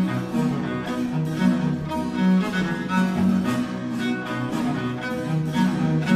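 Background music: a cello concerto, with the solo cello and orchestral strings playing sustained bowed notes that move in steps.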